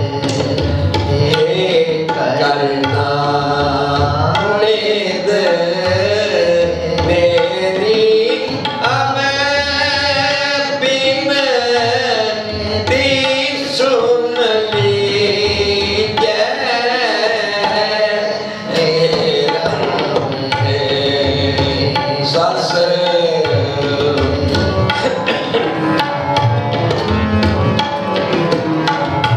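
Sikh kirtan: two harmoniums playing a melody over tabla, with a voice singing and wavering in vibrato. It plays on without a break, with a brief dip in level a little past the middle.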